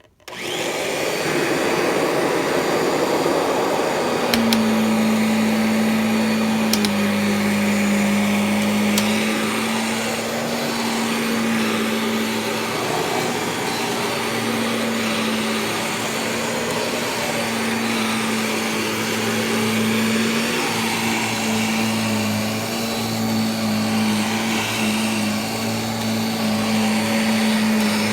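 Vacuum cleaner switched on, its motor starting abruptly and then running steadily with a constant low hum under the whoosh of air, joined by a few light clicks.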